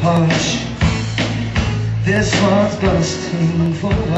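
A live rock band playing: guitars over sustained bass notes, with a steady drumbeat about two hits a second.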